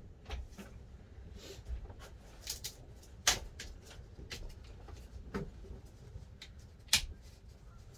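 Scattered clicks and knocks of gloved hands handling the battery terminals and wiring in a boat's battery compartment, with two sharper clicks, one about a third of the way in and one near the end.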